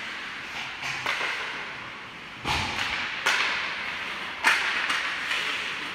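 Ice hockey play: about five sharp cracks and knocks of sticks and puck on the ice and boards, the heaviest a little before halfway with a dull thud, over the steady noise of skates on the ice.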